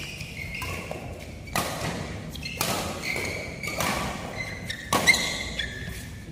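Badminton rally: rackets striking the shuttlecock about once a second, the hardest hit near the end, with shoes squeaking on the court between hits.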